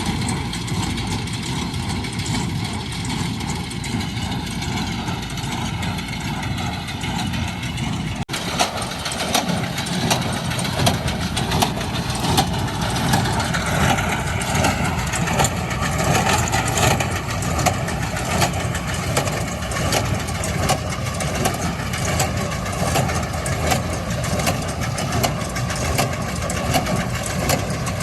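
John Deere 6120E tractor's diesel engine running steadily, driving a Ford 532 square baler. About eight seconds in the sound changes abruptly and becomes louder and busier, with a rapid mechanical clatter over the engine.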